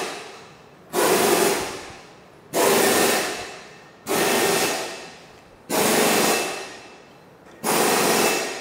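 Shop press pumping in five rhythmic hissing strokes, about one every second and a half, each starting suddenly and fading away. The press ram is compressing a transmission clutch pack's piston return spring so its snap ring can be removed.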